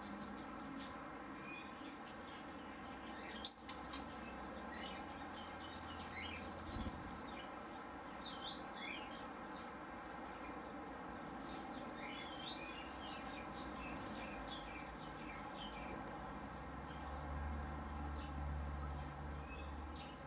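Small aviary birds chirping and twittering on and off, with a brief loud burst of sharp sounds close by about three and a half seconds in. A low rumble comes in near the end.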